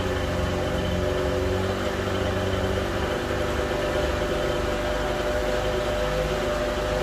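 A boat's outboard motor running at a steady speed while the boat is under way, a constant engine drone with several held tones.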